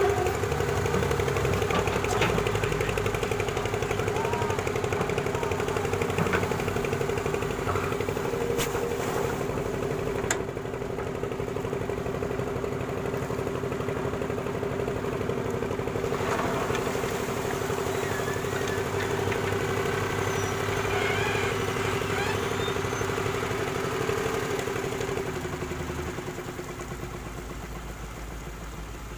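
Excavator engine running steadily with a constant hum, quietening near the end.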